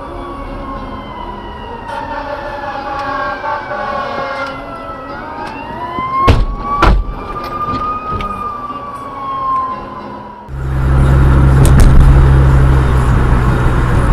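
An emergency vehicle siren wailing slowly, its pitch falling, then rising and falling again, with two sharp bangs about six and seven seconds in. About ten seconds in it gives way abruptly to a much louder steady rumble of driving noise with a low hum.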